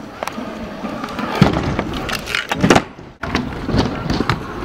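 Stunt scooter wheels rolling and clattering on concrete and ramps, with several sharp impacts. The sound drops out suddenly for a moment a little after three seconds in.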